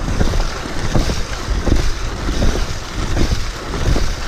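Kicksled runners rushing over snow, with wind buffeting the microphone and irregular thumps and scrapes throughout.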